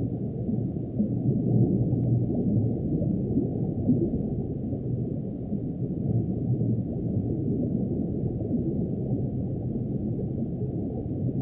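Underwater ambience texture: a steady, muffled low wash of noise with no highs, flickering slightly in level.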